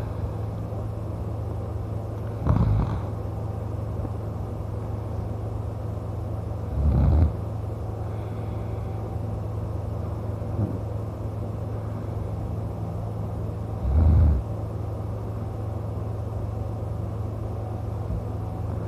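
A man snoring: three short snores several seconds apart, each under a second, over a steady low hum.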